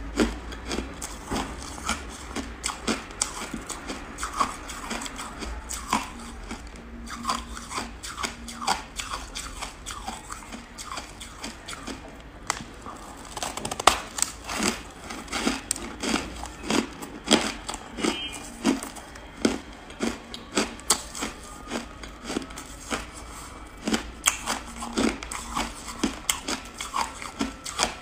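Frozen buckwheat ice being bitten and chewed: a run of irregular sharp crunches and crackles, with the loudest crunch about halfway through.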